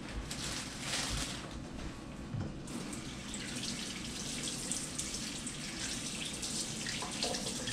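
Water from a kitchen tap running steadily into a stainless steel sink while a potato is rinsed under the stream.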